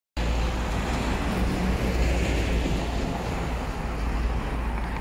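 Isuzu ELF truck's 4HK1 diesel engine idling: a steady low rumble.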